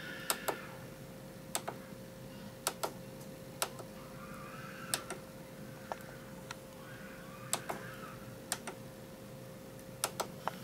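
Clicks of a monitor's control buttons being pressed to bring up and step through its input-selection menu: sharp single and double clicks every second or so, over a faint steady hum.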